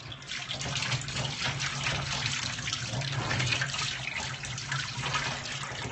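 Steady rush of water from a kitchen sink's pull-out sprayer, splashing onto a dog being rinsed in the sink.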